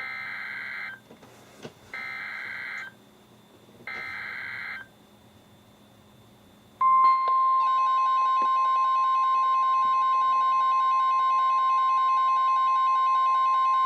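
NOAA Weather Radio emergency alert signal: three short bursts of buzzing SAME digital header data, about two seconds apart. About seven seconds in, the loud, steady 1050 Hz warning alert tone starts, which marks a warning broadcast about to follow.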